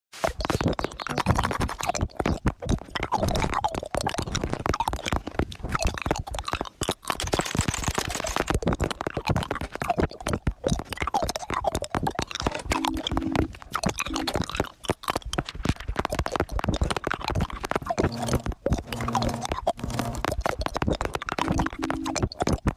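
Hard candy being rolled around in a mouth, with continuous wet clicking and clacking against the teeth. A few short steady tones come in during the second half.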